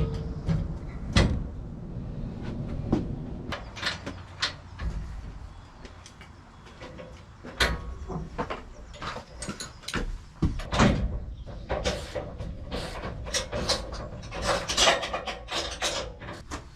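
Scattered knocks and clatter from handling a sawmill bed bunk as it is lifted and turned around, coming thicker and faster in the second half.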